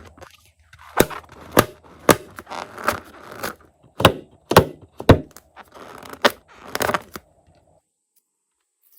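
Slime being squeezed and worked by hand, giving a run of sharp sticky pops and crackles, about ten loud ones over six seconds, then it stops shortly before the end.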